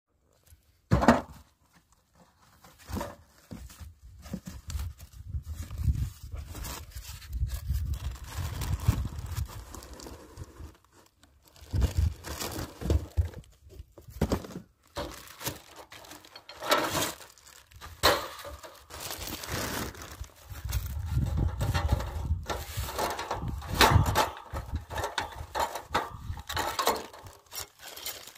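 Plastic wrapping crinkling and rustling, with scattered knocks and clicks, as a new portable charcoal grill and its bagged parts are unpacked. A low rumble of wind on the microphone comes and goes underneath.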